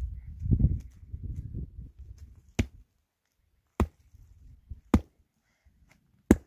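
A hand pick striking stony, gravelly ground: four sharp, separate blows about a second apart, the last the loudest. A low rumbling noise runs through the first two seconds, before the blows start.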